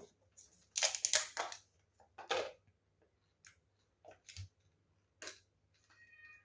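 Homemade slime being handled, in a series of short crackling bursts. The loudest is about a second in, with smaller ones spaced through the rest, and a brief high tone near the end.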